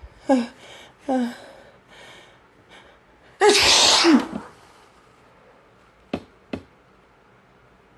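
A woman sneezing: two short catching 'ah' breaths, then one loud sneeze about three and a half seconds in. Two sharp clicks follow about two seconds after the sneeze.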